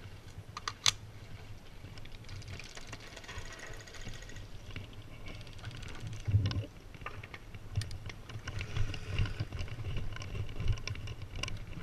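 Scattered clicks and rattles of airsoft gear being handled and carried, with a sharp click about a second in. Faint runs of rapid clicking from airsoft guns firing in bursts further off come in a couple of seconds in.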